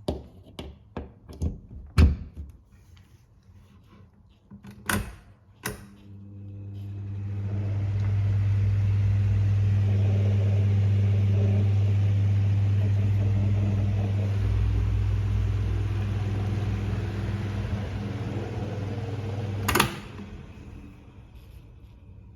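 Microwave oven running with a steady low hum for about twelve seconds, cut off by a sharp click near the end. A few short clicks come before it starts.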